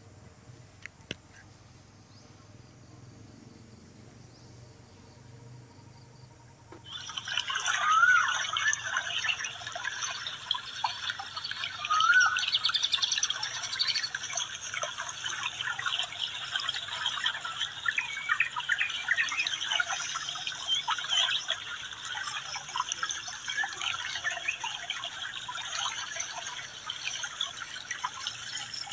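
Quiet background at first, then, from about a quarter of the way in, a dense chorus of birds chirping in the trees, many overlapping short calls with an occasional rising call.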